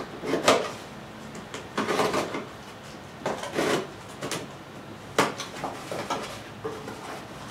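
Small cardboard boxes and packing being handled and opened: a string of irregular scrapes, rustles and knocks, several a second at times.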